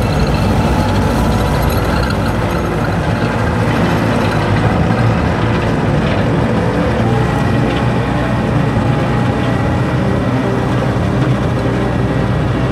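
Yanmar C60R tracked dumper's four-cylinder turbo diesel running steadily as the machine drives on its rubber tracks over gravel.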